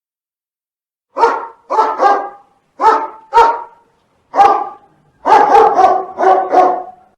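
A dog barking, about ten loud barks in pairs and short runs, starting about a second in.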